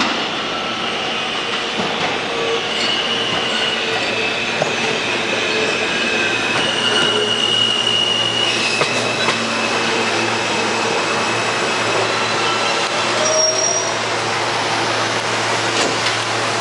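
New York City Subway R160B train pulling into the station, steel wheels squealing on the rails in several high-pitched tones that come and go over the steady rumble and hum of the cars.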